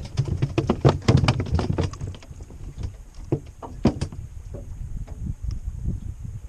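A run of knocks and clatter, densest in the first two seconds and then more scattered, from gear and fish being handled in a small boat, over a low steady rumble.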